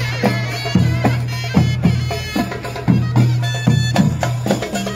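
Egyptian folk street music: a large bass drum (tabl baladi) beating about every three-quarters of a second under a loud, wavering reed-pipe melody of the mizmar kind.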